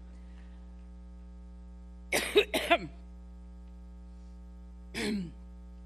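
A woman coughing into a microphone: two sharp coughs about two seconds in and another near the end, over a steady electrical hum from the sound system.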